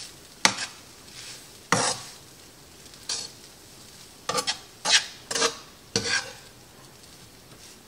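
Utensil stirring fried rice in a hot pan: a series of sharp scrapes and clacks against the pan over a faint sizzle, the strokes stopping about six seconds in.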